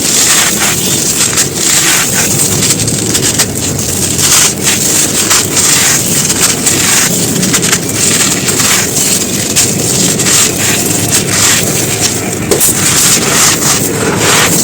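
Dry earthen chunks being crumbled, giving continuous dense crunching and crackling.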